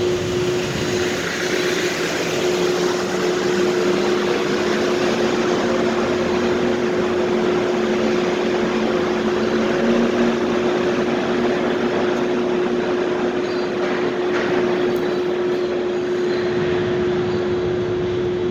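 Steady ambience of a supermarket parking lot: continuous vehicle noise over an even hum with one constant tone, like ventilation or machinery.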